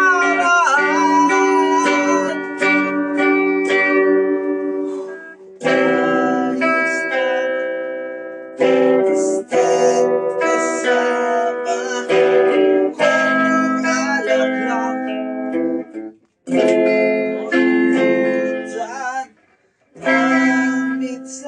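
A guitar strummed and picked in chord phrases, with short breaks between them, heard over a video call.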